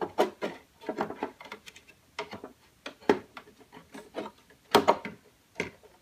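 Irregular clicks, taps and scrapes of a GeForce GT120 graphics card being worked by hand into a PCIe slot of a 2009 Mac Pro, the card knocking and rubbing against the metal case; the sharpest knocks come near the end.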